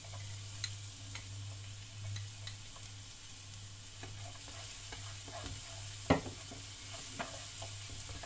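Minced garlic sizzling in hot olive oil in a nonstick frying pan as it is stirred with wooden chopsticks. The sizzle is a steady hiss, broken by a few sharp taps of the chopsticks against the pan, the loudest about six seconds in.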